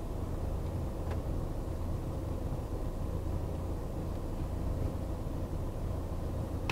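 Steady low rumble of the Renault Trafic's Blue dCi 170 diesel engine, heard from inside the cabin, with a faint click about a second in.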